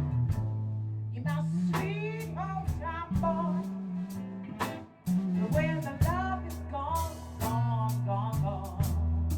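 A small rock band playing live: electric bass holding long low notes, drum kit strokes, and a melodic lead line that bends up and down in pitch above them.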